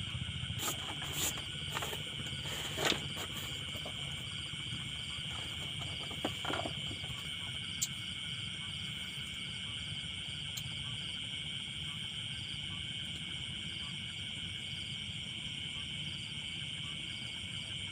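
Steady night chorus of insects, a high shrill drone with a faint pulsing above it, over a low steady rumble. A few short knocks and rustles in the first few seconds.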